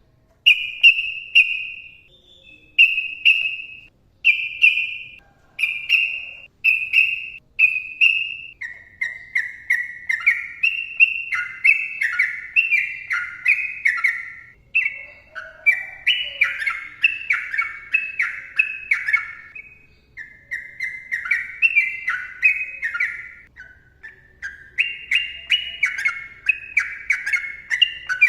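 Sooty-headed bulbul (trucukan) singing. It opens with a string of short, clear notes about one a second, then from about eight seconds in breaks into a long unbroken run of quick, falling phrases.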